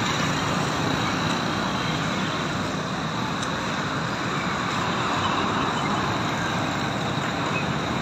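Steady road traffic noise, an even rush of passing vehicles with no single event standing out.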